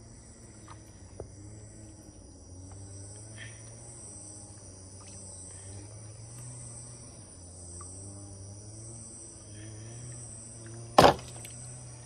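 Steady high-pitched chorus of insects, gently pulsing, over a low wavering hum; a single loud knock about eleven seconds in.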